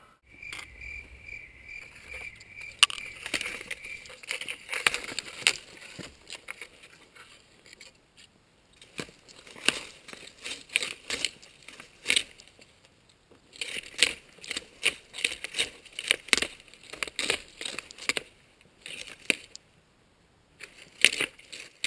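Footsteps crunching and snapping on dry pine needles and twigs on a forest floor: irregular runs of short crackles, with pauses about a third of the way in and shortly before the end. Near the start there is a quick, even run of high chirps.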